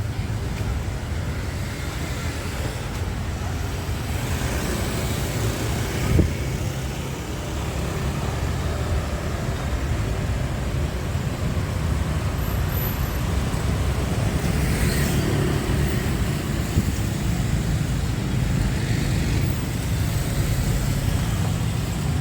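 Steady road traffic noise from vehicles passing on a city street, with a single sharp knock about six seconds in.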